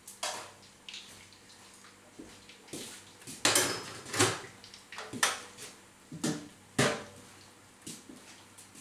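Metal kitchenware clattering: a steel tray and cooking utensils knocked and set down in a series of sharp clanks, the loudest a little after the middle and near the end.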